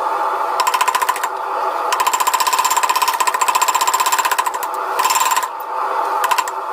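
Powered hammer striking steel in several bursts of rapid, evenly spaced blows, about ten a second, over a steady hum.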